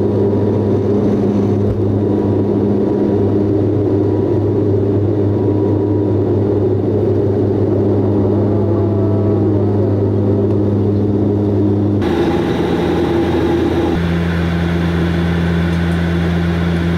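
Propeller and engine drone of a Bombardier Q400 turboprop heard from inside the cabin, a loud steady hum with a strong low tone, while the aircraft rolls along the runway. About twelve seconds in it changes abruptly to a different steady cabin drone.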